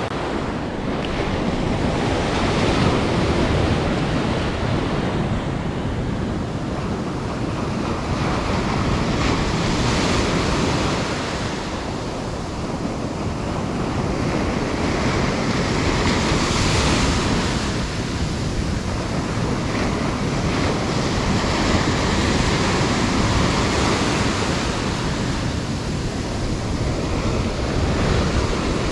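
Surf washing on the shore, swelling every six or seven seconds as waves break, with wind rumbling on the microphone.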